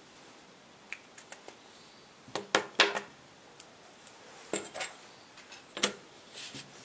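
Small clicks and clatters of a pen and a steel ruler being put down and handled on a tabletop, the loudest cluster a little before the middle and a few more knocks towards the end.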